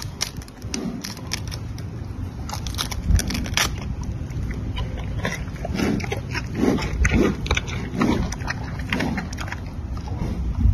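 Giant panda biting and chewing a bamboo shoot: crunching and cracking of the fibrous stalk, with a run of rhythmic chewing thumps about two a second in the second half.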